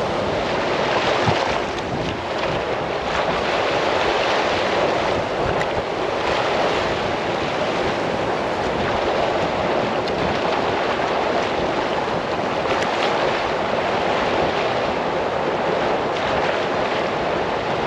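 Steady rushing noise of waves and wind, with no break or change.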